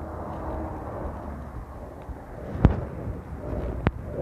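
A passing bus, its engine rumble swelling and then easing off, followed by two sharp knocks a little over a second apart.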